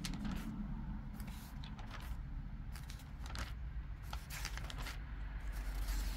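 Pages of a glossy supermarket advertising brochure being leafed through: repeated quick crackling rustles as sheets are flipped and handled, over a low steady hum.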